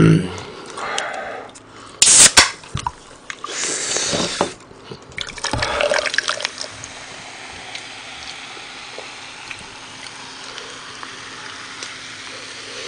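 Coca-Cola can cracked open with sharp clicks about two seconds in. Cola is then poured from the can into a cup, splashing, with a steady fizzing hiss as it settles.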